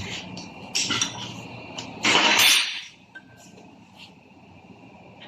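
Metal gearbox parts being handled: clinks and a louder scraping clatter just after two seconds, as steel shift rods are pulled from and set down beside a manual gearbox case, with a faint ring afterwards.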